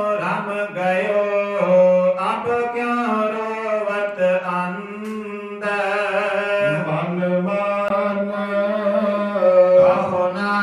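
Sikh kirtan: a voice singing Gurbani verses as a chant in long, drawn-out held notes, with a short dip near the middle.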